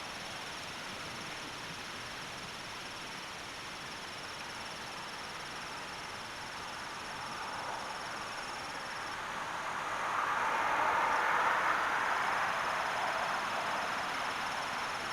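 Insects trilling steadily at a high pitch over an outdoor rustling noise. The trill breaks off about nine seconds in and comes back a few seconds later, while the rustling grows louder around ten seconds in.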